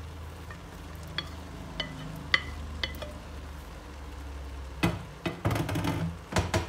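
Diced bell peppers tipped into a pan of bopis that sizzles lightly, with a few sharp ticks in the first three seconds and a cluster of knocks and scrapes about five seconds in.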